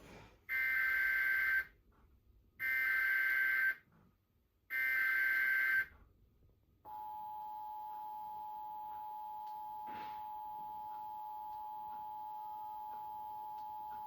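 Emergency Alert System broadcast from a television: three SAME header data bursts, each about a second long and screechy, then about seven seconds in the steady two-tone EAS attention signal begins and holds. This is the alert header and attention tone that come just before a tornado warning is read out.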